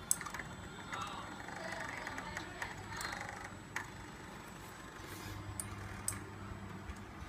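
Small CNC laser engraver at work: its stepper motors whine in short moves as the head traces the engraving, with scattered sharp clicks over a steady low hum.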